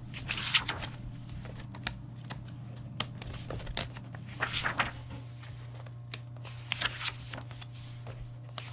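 Pages of a thick origami diagram book being turned by hand: several short paper swishes and rustles, with a steady low hum underneath.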